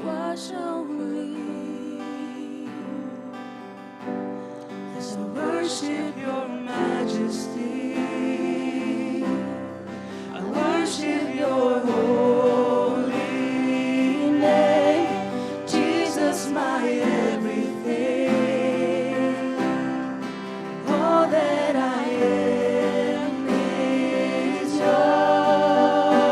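Live gospel worship music: a sung melody with long wavering notes over acoustic guitar, growing louder about ten seconds in.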